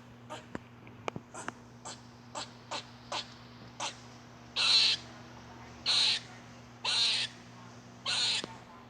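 Squirrel calling: a quick run of short, sharp chirps, then longer, hoarse calls repeated about once a second.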